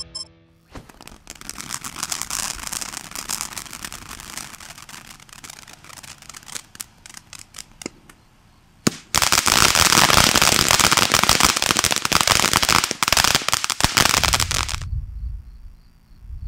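Phantom Star Spangled Spectacular (H-239) ground fireworks fountain spraying with a hiss and scattered crackles. About nine seconds in it breaks into a loud, dense crackling for around six seconds, which stops suddenly.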